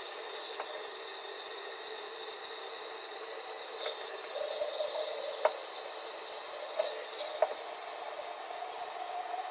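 Water running from a kitchen tap into the sink, a steady rushing hiss, with a few light knocks and clinks of things being handled in the sink.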